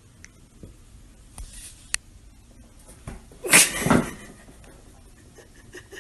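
A cat's brief cry about halfway through, with a couple of small clicks before it.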